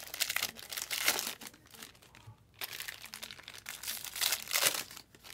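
Plastic wrapper of a baseball card pack crinkling as it is torn open and handled, in irregular rustles, loudest about a second in and again near the end.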